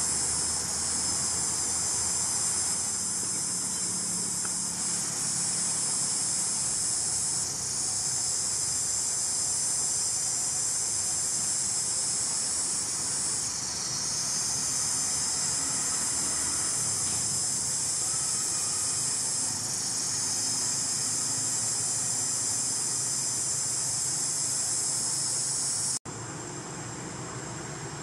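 Forest insect chorus: a loud, steady, high-pitched buzzing drone. It stops suddenly near the end, leaving a quieter background.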